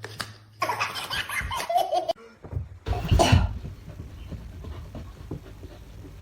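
A person laughing in bursts, loudest about three seconds in, then trailing off.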